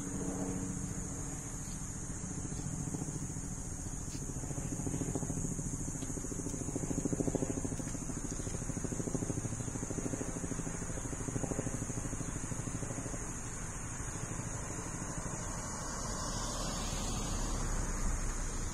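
Car traffic going by on a rain-wet street, with a steady high-pitched hiss above it. The traffic swells gently twice.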